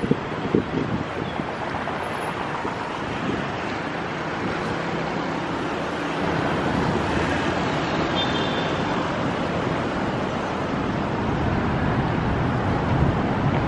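Steady road traffic noise of cars passing on a city street, a little louder from about six seconds in.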